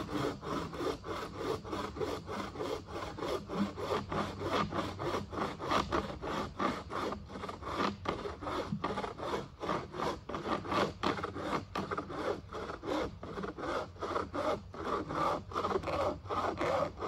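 Bahco 30-inch bow saw with a dry-wood blade cutting through a resin-rich fatwood pine log, in rapid, even back-and-forth strokes.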